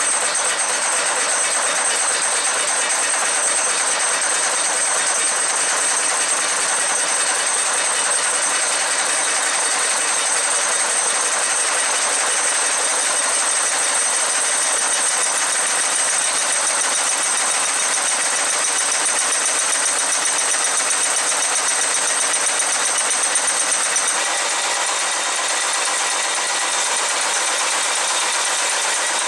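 HS100 high-speed, bearing-type wire nail making machine running and turning out nails: a loud, steady mechanical clatter with high ringing tones over it.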